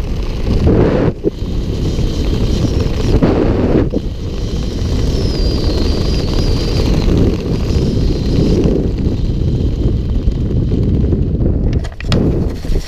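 Wind buffeting the microphone of a helmet-mounted action camera during a parachute canopy descent: loud, steady and gusty. About twelve seconds in it dips briefly and crackles as the canopy comes in low over the grass to land.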